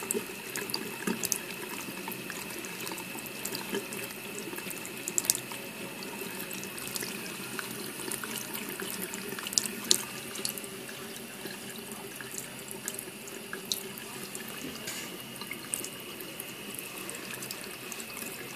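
Bathroom tap running steadily, its water streaming out of a whale-shaped spout into the sink basin, with irregular small clicks and splashes as a cat laps at the stream with its tongue.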